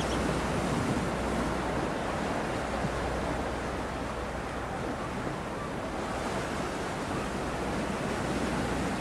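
Steady wind and water noise off open seawater, with a low rumble underneath and no distinct events.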